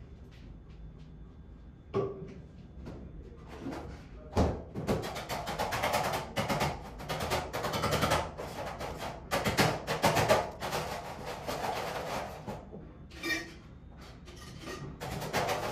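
Coffee being made: a loud, irregular rattling clatter with sharp knocks that sounds like construction noise, starting about four seconds in and easing off near the end. Light laptop key taps come before it.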